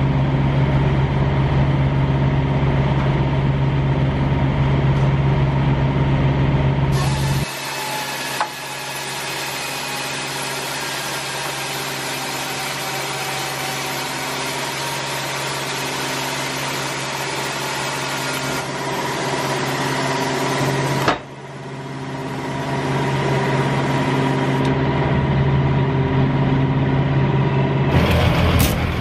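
Semi truck's diesel engine idling steadily. The hum changes abruptly twice, about a quarter of the way in and again past two-thirds, each time with a short sharp click.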